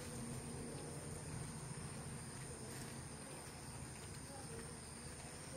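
Insects, such as crickets, keeping up a steady high-pitched drone over a faint low hum.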